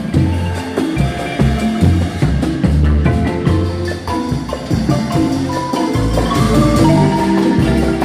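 Guatemalan marimba ensemble playing a bolero, with the bass marimba's low notes sustained under the tenor marimba's melody.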